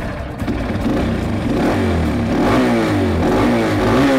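Dirt bike engine being revved with the twist-grip throttle, its pitch rising and falling in repeated quick blips that grow louder about a second in; so loud.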